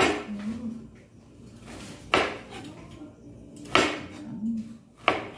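Kitchen knife striking a cutting board as pieces are sliced off: four sharp knocks, about a second and a half apart.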